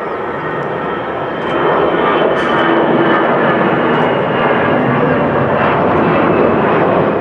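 Airbus A320 twin jet engines at take-off power as the airliner climbs out. A loud roar swells about a second and a half in and holds, with a thin steady whine above it.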